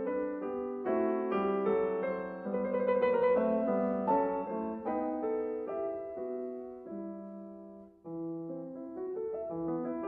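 Solo piano music, note by note, falling briefly quiet about eight seconds in before a new phrase begins.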